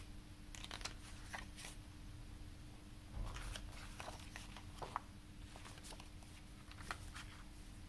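Pages of a CD lyric booklet turned by hand: a string of short papery swishes and rustles with a few sharper ticks, over a faint steady hum.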